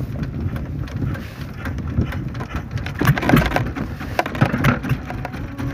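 Wooden fishing boat's engine running steadily, with quick clicking and rustling from about three seconds in as a nylon net is hauled in over the gunwale.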